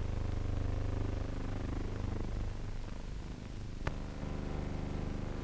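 A steady low hum with a single sharp click about four seconds in.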